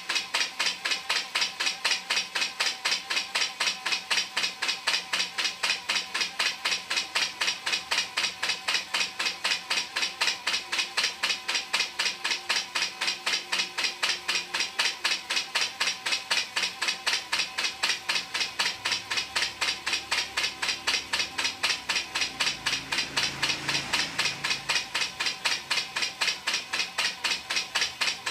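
Homemade coil-winding machine for electric fan motor coils running, with a fast, even ticking of about four to five clicks a second over a faint steady hum. A brief low rumble swells and fades about 22 seconds in.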